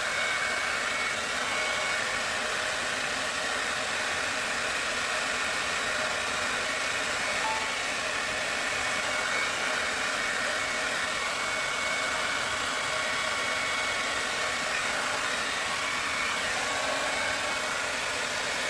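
Hand-held hair dryer blowing steadily, with a faint motor whine in its rush of air, switched off abruptly at the very end.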